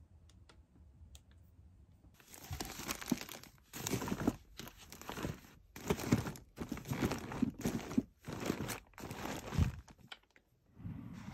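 Plastic bags and wrappers crinkling and rustling in a run of short bursts, as hands rummage through a drawer packed with yarn balls and plastic pouches; it stops briefly near the end, then a softer rustle follows.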